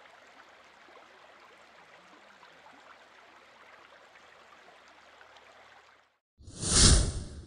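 Shallow stream running over a rocky bed, a faint steady rush of water that cuts off about six seconds in. Then a loud whoosh swells and fades over about a second.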